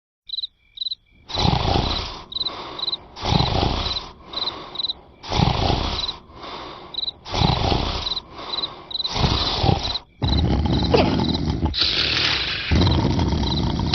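Snoring in a quick rhythm: a loud breath about every two seconds with a softer one in between, running almost continuously near the end. Crickets chirp steadily in the background.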